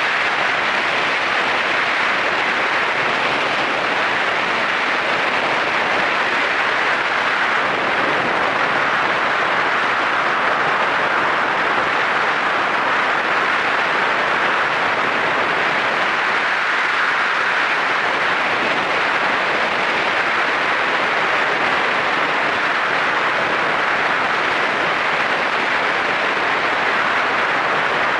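Steady rush of wind and road noise while riding a Yamaha SRX4 motorcycle at cruising speed, with no distinct engine note.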